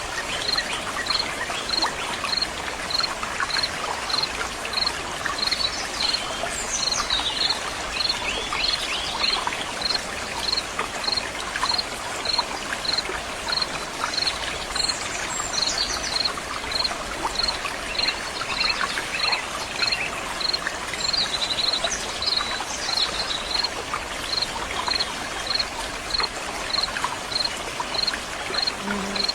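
Running water flowing and falling steadily. An insect chirps evenly about twice a second throughout, and birds call briefly a few times.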